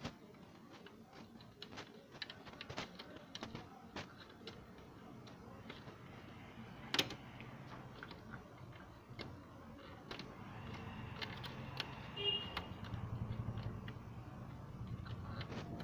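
Small plastic clicks and taps from fitting a pickup roller onto its shaft inside an HP LaserJet P3015dn laser printer and snapping its latch, with one sharper click about halfway through. A low hum builds in the background in the second half.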